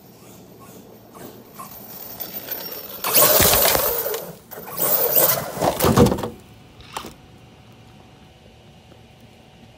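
Arrma Kraton 8S brushless RC monster truck tearing past right by the microphone, throwing up spray and debris. There are two loud rushes, about three and five seconds in, then it stops close by.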